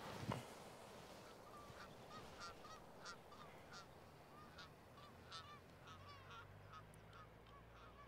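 Geese honking faintly and repeatedly, one or two short calls a second. A single soft thump comes right at the start.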